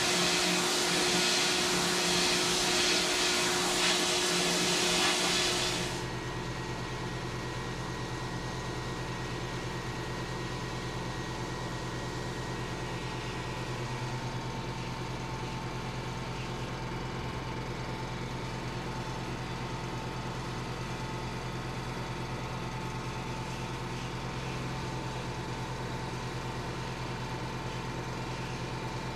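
Sandblaster blasting a brake rotor: a loud, even hiss of air and grit that stops abruptly about six seconds in, leaving a steady motor hum.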